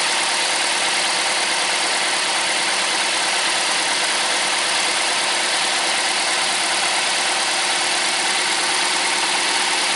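Four-cylinder petrol engine idling steadily at about 1100 rpm, running very smoothly with no misfire or vibration now that its broken ignition coil has been replaced.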